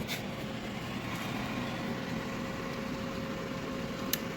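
Countertop kitchen cooking appliance running with a steady hum and a faint steady tone, heating a batch of cookies. A short click about four seconds in.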